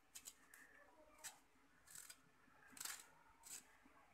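Hand-held metal vegetable peeler scraping the skin off a raw green mango, a series of faint, short strokes.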